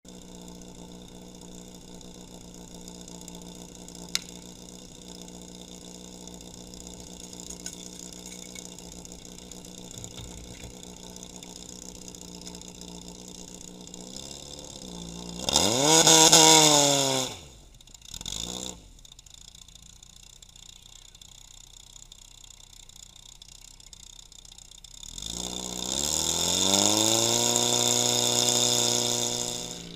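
Portable fire pump's engine idling steadily, then revved up hard twice, its pitch climbing each time: first for a couple of seconds before it is cut back sharply, with a short blip after, then for about four seconds near the end.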